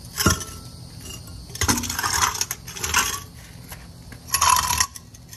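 Metal clinking and rattling in four short bursts, with brief ringing, as the electric motor's metal wiring box and wire leads are handled.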